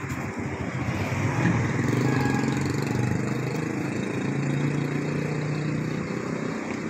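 A motorcycle engine passing close by on the street, growing louder to a peak about two seconds in and then easing, over a steady traffic hum.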